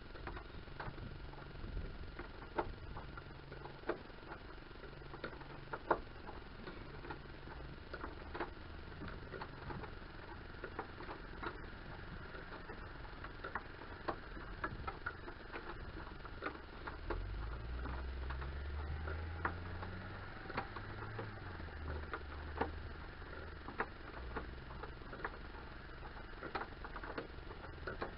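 Scattered light metallic clicks and taps from hand tools and a bolt on a bracket being worked with gloved hands, irregular and about one or two a second. A low rumble rises and fades in the middle.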